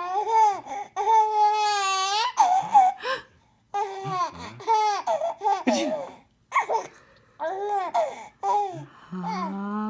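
A small child laughing in repeated high-pitched bursts of giggles and squeals, with one long held squeal about a second in. Near the end a lower voice rises steadily in pitch.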